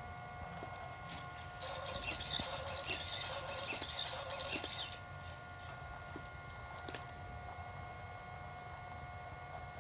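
Sony Aibo ERS-111 robot dog sounding a warbling electronic chirp for about three seconds, starting a couple of seconds in, with a few faint clicks as it moves.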